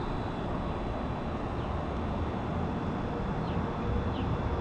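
Wind buffeting the microphone outdoors, a steady low rumble of gusty noise with no clear gusts standing out.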